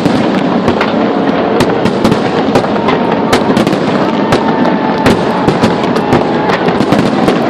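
Large fireworks display: a rapid, continuous barrage of sharp bangs, several a second, over steady crackling.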